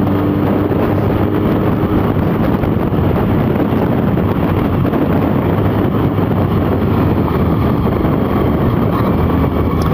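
Motorcycle engine running steadily at road speed, mixed with wind noise on the microphone.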